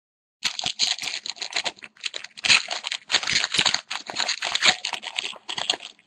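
A foil hockey card pack wrapper crinkling and tearing as it is pulled open by hand, starting about half a second in and going on as a long run of crackles.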